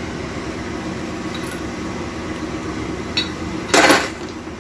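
A faint click, then a single loud metallic clank with a short ring about three and a half seconds in, as a metal automatic-transmission part is handled or set down on the bench, over a steady low hum.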